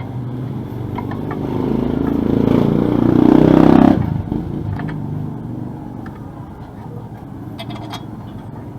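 A small motorcycle engine revving up, growing louder over about four seconds and then dropping off sharply, with quieter running after.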